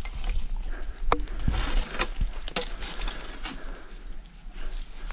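Close handling noise: a collapsible crab pot and its rope rustling, scraping and clicking as they are handled and carried, with scattered sharp knocks and footsteps on a muddy bank.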